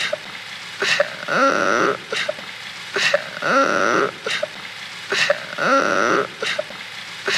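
Cartoon crying sound effect: a sobbing wail repeated in an identical loop about every two seconds, each round set off by a sharp click.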